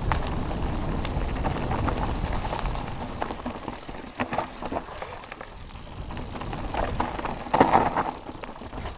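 Mountain bike riding down a rocky dirt singletrack, heard from a helmet-mounted camera: wind rumbling on the microphone and tyres crunching over dirt and stones, with sharp clicks and rattles of the bike over bumps. The loudest clatter comes a little before the end.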